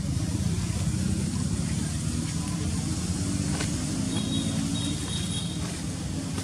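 A steady low rumble with a faint droning hum running through it.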